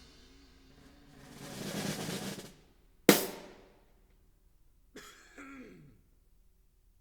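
Drum sounds through a sound system: a swelling cymbal wash, then a single sharp hit that rings out, then a click and a short falling tone before everything stops.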